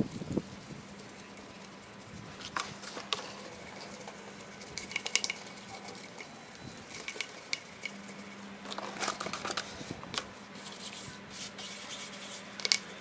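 Stiff brush scrubbing a wet alloy wheel rim coated with baking soda and lemon juice: short, intermittent scratchy strokes in clusters, over a faint steady low hum.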